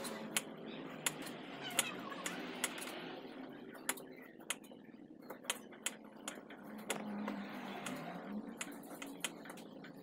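Kitchen knife slicing pieces off a galangal root on a wooden chopping board: irregular sharp clicks as the blade meets the board.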